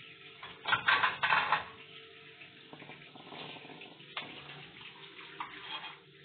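Hot cooking water and boiled okra poured from a pot through a plastic strainer into a stainless-steel sink, splashing and draining. The loudest rush comes about a second in, with a shorter one near the end.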